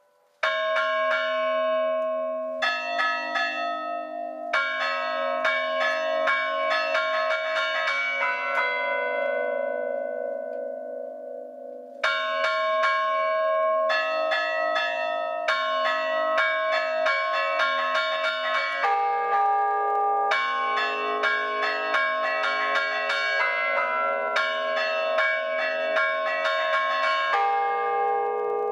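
Several church bells chimed by hand and by foot: a ringer pulls ropes held in both hands and tied to both feet, striking the bells in a quick rhythmic tune, each stroke ringing on under the next. The striking stops about eight seconds in, the bells hum away, and it starts again about twelve seconds in.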